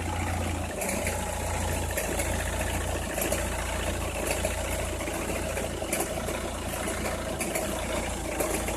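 Opel Meriva engine idling, with irregular sharp cracking clicks over the steady running. This crackle is heard only when the engine is cold or at very low revs.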